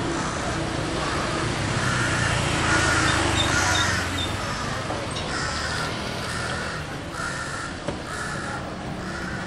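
A crow cawing over and over, a series of short caws about a second apart, over the steady rumble of city traffic.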